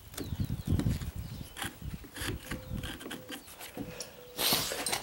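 Quarter-inch wood chisel paring and scraping wood out of a strike-plate mortise in a door jamb, in short irregular strokes with a few sharp clicks. A short rushing noise comes near the end.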